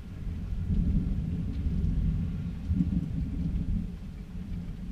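Thunder rumbling deeply, swelling within the first second and rolling on for several seconds before easing near the end.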